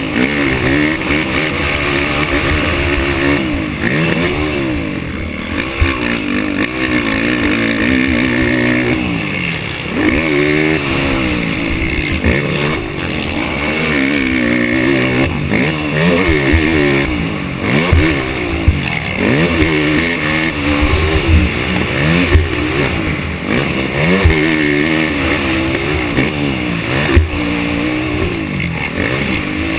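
Race ATV engine revving hard and falling off over and over through shifts and throttle changes on a motocross track, with a few sharp knocks along the way.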